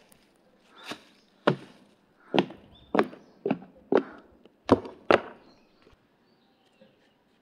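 Footsteps of black heeled mules on a wooden boardwalk: about eight sharp wooden knocks, roughly two a second, that stop a little after five seconds in.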